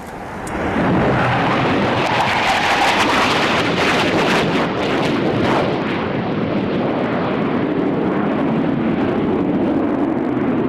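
Panavia Tornado's twin RB199 turbofan engines passing close: loud jet noise that swells about a second in and crackles for a few seconds, then carries on as a steady, duller rumble.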